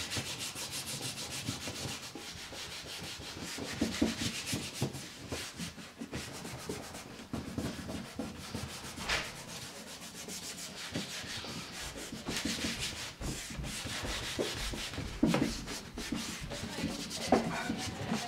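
Hands rubbing rough paper laid over an inked lino block to burnish the print onto it: a continuous dry rustle of quick back-and-forth strokes, some louder than the rest.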